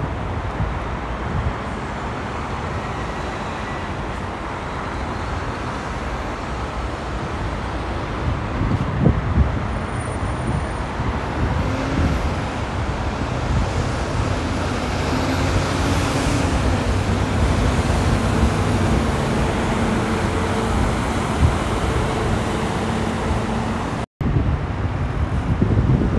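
Steady rush of multi-lane freeway traffic, tyres and engines of cars and trucks blending together. A low engine hum stands out in the second half, and the sound drops out for a split second near the end.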